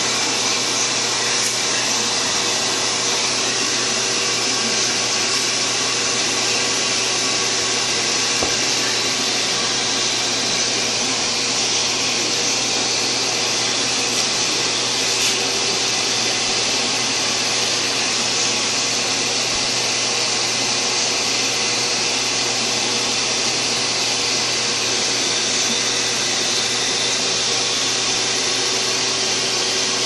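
Vacuum cleaner running steadily, its hose nozzle sucking at a long-haired cat's fur: an even airy rush with a faint constant hum underneath.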